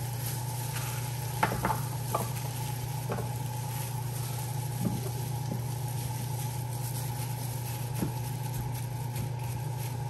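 A few soft taps and clicks as chopped vegetable pieces are dropped into a metal roasting pan, over a steady low hum.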